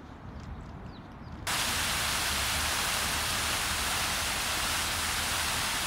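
A loud, steady hiss like static or white noise that switches on abruptly about a second and a half in and cuts off suddenly near the end.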